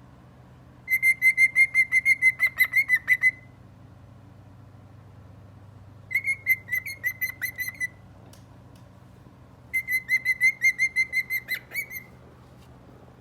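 Cockatiel singing: three phrases of rapid, repeated whistled notes on one pitch, each phrase about two seconds long.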